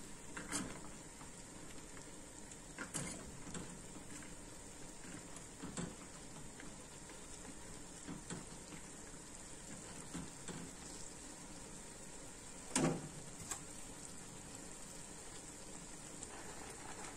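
Water boiling steadily in stainless steel pots, softening dried peppers and dried eggplants. A wire skimmer clinks against a pot now and then, several short knocks with the loudest about three-quarters of the way through.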